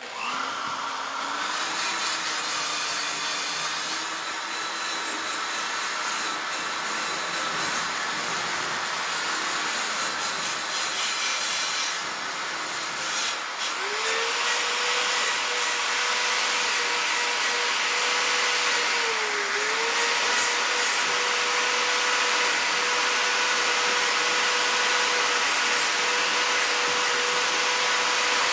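Power tool fitted with a wire brush, running and scrubbing primer off the metal frame. Its motor hum climbs to a higher steady pitch about halfway through and dips briefly once.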